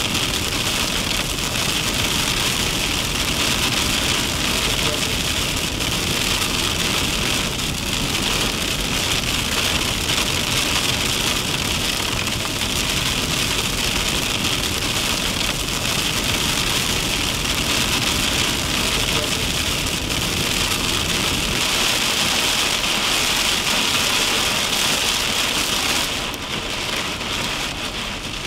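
Rain pelting a moving vehicle's windshield and body, mixed with tyre hiss on a soaked highway: a steady, even hiss that eases slightly near the end.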